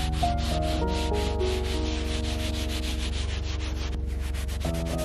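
Frost being scrubbed off a frozen solar panel by hand: a dry, scratchy rubbing in fast, even back-and-forth strokes, about eight a second.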